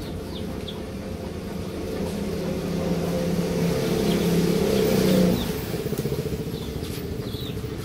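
A motor vehicle engine running, growing louder and then dropping off sharply about five seconds in.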